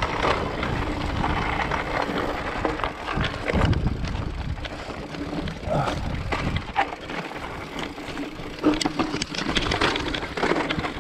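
Mountain bike riding down a steep rocky singletrack: tyres crunching over loose stones and rock, with irregular knocks and rattles from the bike over the bumps.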